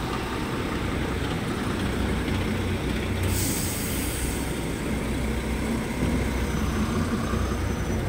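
Diesel semi-truck running at low revs while manoeuvring a semi-trailer, a steady low rumble. About three seconds in, a short sharp hiss of compressed air from the truck's air brakes.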